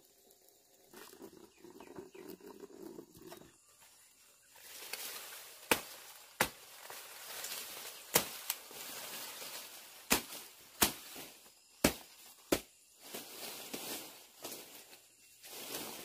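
A blade chopping through stalks of tall forage grass: about eight sharp strikes, mostly in pairs, starting about six seconds in, with leaves rustling between them.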